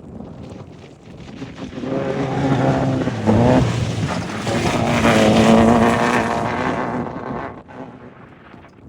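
An off-road race vehicle's engine passing by. It builds up, is loudest through the middle, and fades away near the end, with the engine note rising sharply about three and a half seconds in. Wind buffets the microphone.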